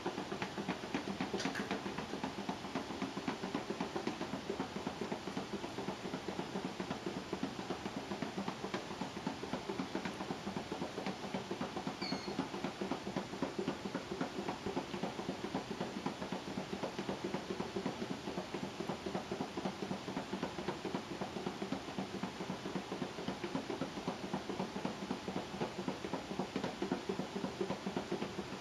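Lidded plastic box holding a removed implant in Ringer's solution, wrapped in a towel and shaken hard by hand, rattling and sloshing in a rapid, steady rhythm. This is the 30-second shake that follows sonication, and it stops right near the end.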